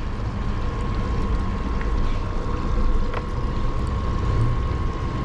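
Rechargeable portable aerator pump running with a steady high hum while its Daiwa Metal Stone R air stone bubbles hard in the water of a small cooler, bubbling as if it were boiling.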